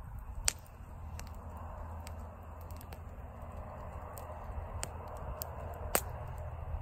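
Wood campfire crackling, with scattered pops and two sharper snaps, about half a second in and near the end, over a low steady rumble.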